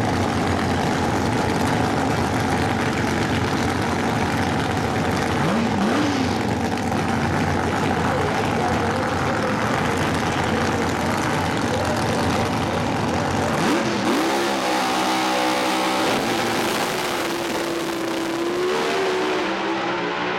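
Two Top Alcohol Funny Car drag racing engines running loudly at the starting line with short revs, then launching about two-thirds through, after which the deep low end drops away and the engine sound thins as the cars run off down the track.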